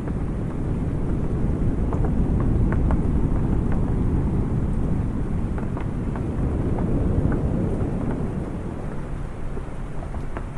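Ocean waves washing in as a low, rushing noise that swells and eases, with scattered raindrops ticking on a wooden awning.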